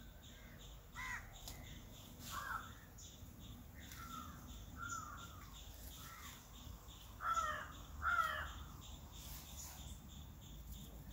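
Crows cawing: a string of short, harsh caws, the two loudest close together near the end.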